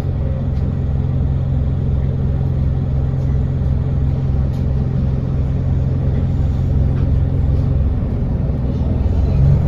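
Alexander Dennis Enviro 200 bus's diesel engine idling with a steady low hum and a regular pulsing throb. Near the end the engine note starts to rise.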